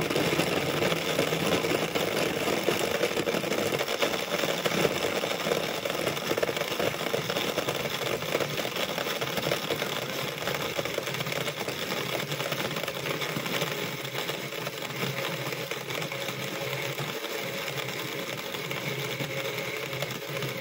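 Countertop electric blender running at speed, blending ripe mango, milk and crushed ice into a mango shake: a steady motor whir with the churn of the contents, easing slightly in level over the run.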